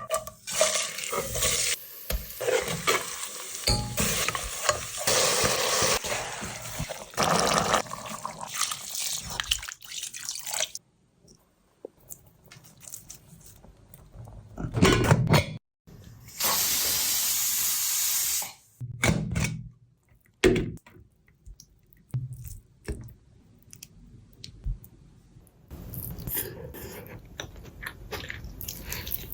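Kitchen sink sounds: tap water running in stretches, one steady run lasting about two seconds in the middle, with short clatters and quiet pauses in between.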